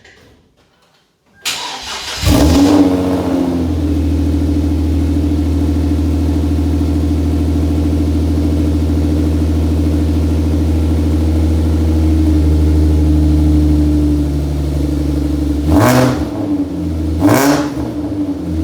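Hyundai Genesis Coupe 3.8-litre V6 with headers, ARK Performance downpipes, mid pipe and cat-back exhaust starting up: a brief crank about a second and a half in, a flare as it catches, then a steady idle. Near the end it is blipped twice in quick succession before dropping back to idle.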